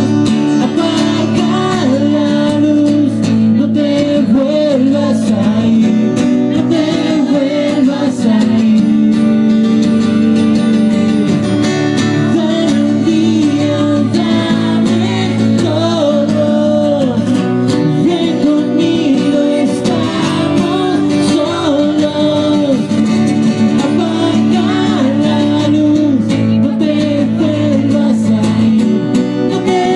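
Live song: a man singing at a microphone, accompanied by strummed acoustic guitar.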